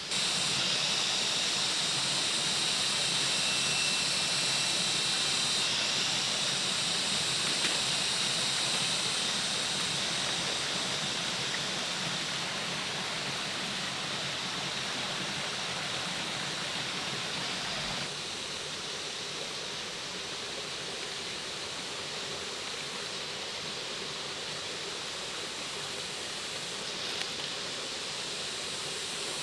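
Steady rushing noise of flowing water, with a high, even drone over it for the first six seconds. The sound shifts abruptly a few times.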